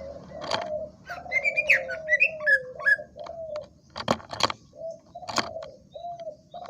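Cucak ijo (green leafbird) singing: a run of short, slightly falling low whistled notes with high chirping phrases over them in the first half, and a few sharp clicks.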